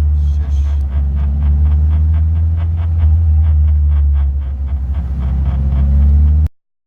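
A car's brakes making a rhythmic scraping squeak, about five pulses a second, over the steady low drone of the car running. The pulses thin out near the end.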